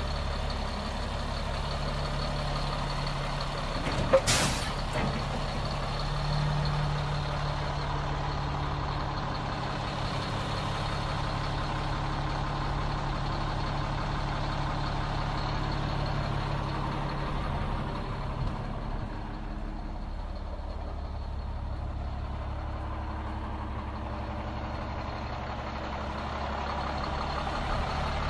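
Diesel engine of a 2006 Sterling LT8500 plow truck idling steadily, with a sharp short hiss of released air about four seconds in.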